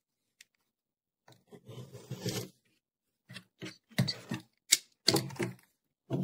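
Small scissors snipping through wool wadding along a ruler's edge. After a quiet first second comes one longer cut, then about half a dozen quick, crisp snips over the last few seconds.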